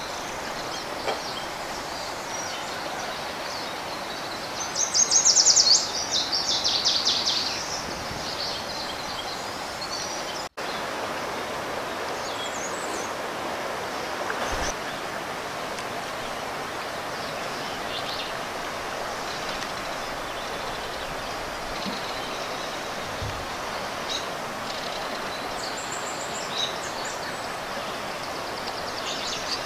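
River water flowing steadily over a rocky bed. A bird sings a rapid, high trill about five seconds in, and faint chirps follow later.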